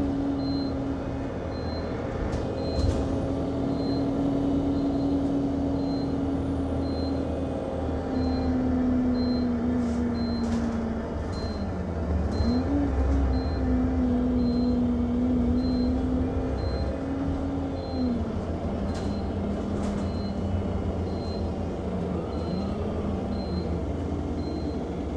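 Inside an Alexander Dennis Enviro200 MMC single-deck bus on the move: the engine drones steadily, its pitch dipping and climbing again twice as the bus slows and pulls away. Throughout, a short high beep repeats about once a second without stopping, with a few rattles in the cabin.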